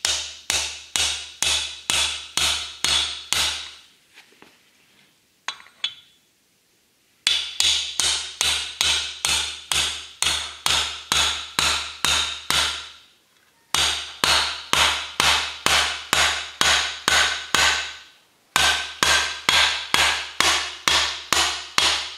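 A hammer tapping on a socket and extension, driving a new bearing into the bore of a Kawasaki 15F jet pump housing. Steady, even strikes about two a second, each ringing briefly, in runs of several seconds with short pauses between them.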